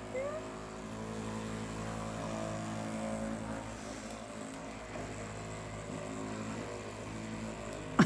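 Electric massager running with a steady motor hum, its pitch held level, with a brief rising squeak just after the start.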